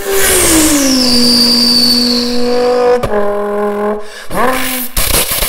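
A man's voice imitating a twin-turbo Lamborghini Huracán flyby, made into a paper towel roll. The engine-like note drops in pitch as the car passes and then holds, with a high turbo-like whistle over it. After a click, a rising rev sweep comes about four seconds in, and a rough noisy burst near the end.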